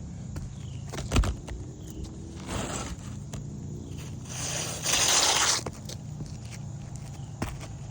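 Asphalt roof shingles being handled on the roof: a sharp knock about a second in, then rough scraping, the longest and loudest about halfway through.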